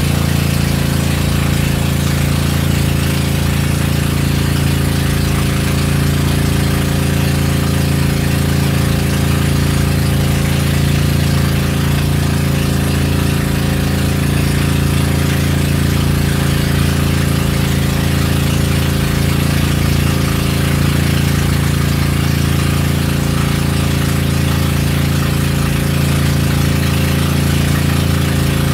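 Outrigger boat's inboard engine running at a steady cruise, a loud, even drone with no change in speed.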